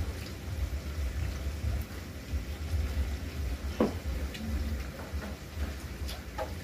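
Food sizzling on a BBQ grill pan over a portable gas stove: a steady hiss with a low rumble underneath, and one light tap about four seconds in.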